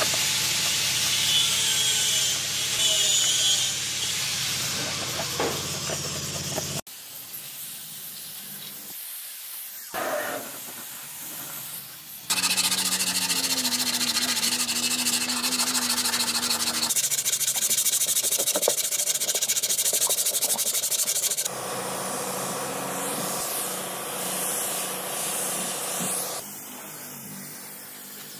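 Workshop hand and power-tool work in short edited segments: hissing, rubbing and abrasive sounds that change abruptly every few seconds.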